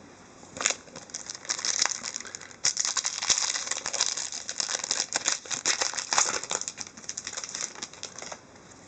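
Crinkling and tearing of a hockey card pack's wrapper as it is torn open by hand, a dense run of crackles that stops shortly before the end.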